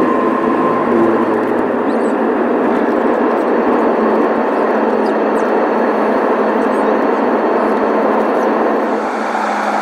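Jet airliner's engines at takeoff thrust, heard from inside the cabin as a loud, steady rushing noise during the takeoff roll and initial climb, with a faint whine that fades in the first couple of seconds.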